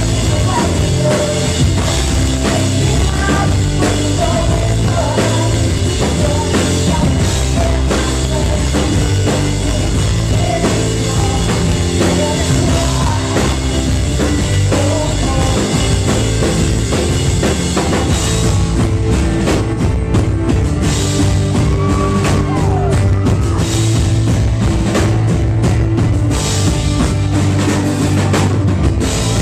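Live pop-rock band playing a song, with a drum kit and a singer's voice over it. The top end thins out in stretches in the last third.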